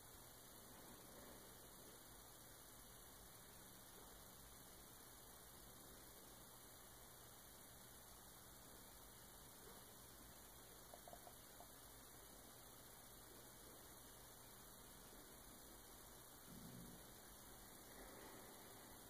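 Near silence: faint steady hum and hiss of room tone.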